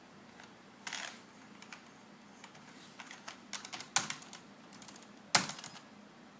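Computer keyboard keys pressed in irregular bursts: a few quick clicks about a second in, a run of taps in the middle, and two harder key strikes near the end.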